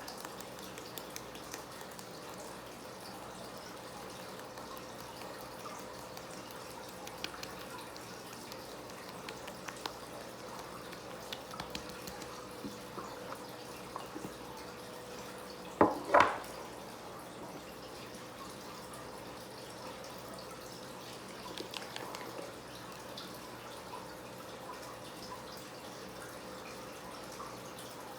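Faint dripping and small wet handling clicks in a small room over a steady low hum, with a brief louder double sound about sixteen seconds in.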